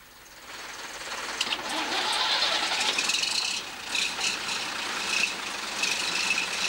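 A vintage lorry's engine starting and settling into running, puffing exhaust smoke. The sound builds over the first two seconds, then runs steadily with scattered sharp clicks and a thin high whine from about three seconds in.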